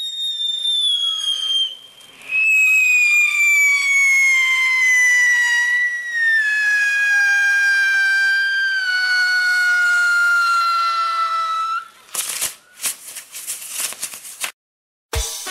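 Firework sound effect: a long whistle falling slowly in pitch, breaking off briefly about two seconds in, then a run of sharp crackling bangs near the end.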